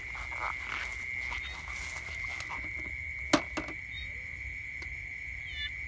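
A steady, high-pitched trill from a night chorus of calling creatures runs throughout, with a single sharp click a little past halfway, the loudest sound, and a few short falling chirps near the end.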